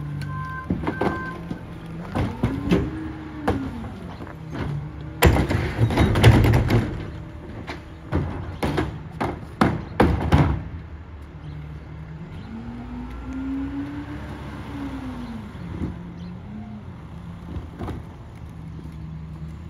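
Rear-loader garbage truck running while recycling carts are hand-tipped into its hopper: a burst of clattering and banging about five seconds in, then several more knocks up to about ten seconds in. The truck's engine rises and falls in pitch twice, around three and fourteen seconds in, and a few short electronic beeps sound at the very start.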